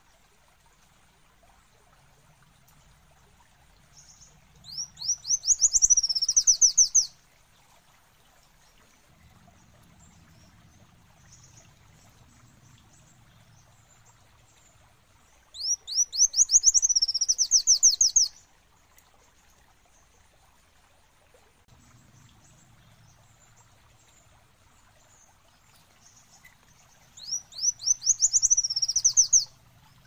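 Kolibri wulung sunbird singing: three bursts of about two to three seconds each, roughly eleven seconds apart, each a quick run of high, sweeping notes.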